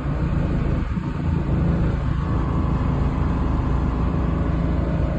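Tour boat's engine running steadily, a low drone under a haze of noise.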